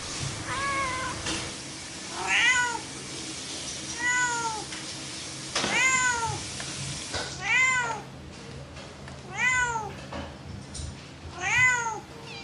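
Long-haired tabby cat meowing over and over: seven short arched meows, about one every two seconds.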